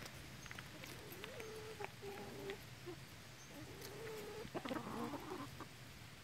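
Chickens clucking and making soft, drawn-out, wavering calls while they feed, with a louder, rougher call about two-thirds of the way through and a few light taps.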